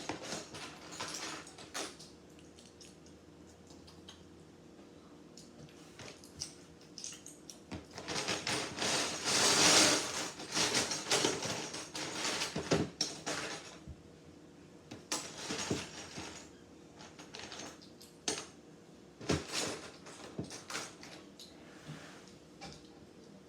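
Plastic Lego pieces clicking and clattering as they are handled and rummaged through, with a louder spell of rattling about ten seconds in.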